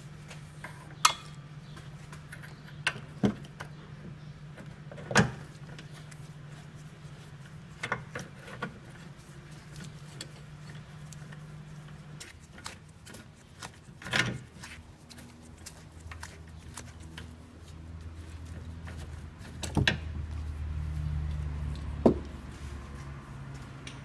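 Scattered metallic clinks and knocks, about eight with pauses between, from a socket wrench on the bolts of a Land Rover Discovery 3's propeller shaft centre bearing as it is unbolted. Under them runs a low steady hum that stops about halfway, then a low rumble.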